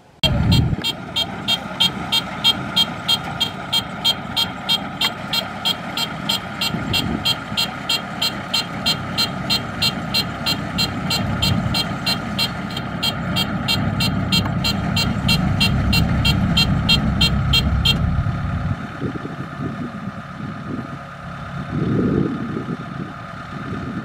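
Diesel engine of a Kubota DC-70 Plus combine harvester running steadily, with a fast, even mechanical ticking over it that stops about 18 seconds in. The engine runs on after that, swelling briefly near the end.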